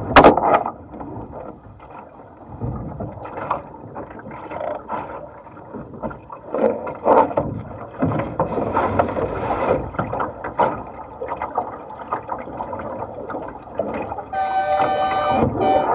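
Water rushing and slapping against a small sailing dinghy's hull as it sails, in irregular surges with the odd knock. Near the end a horn sounds, one blast about a second long followed by a short one.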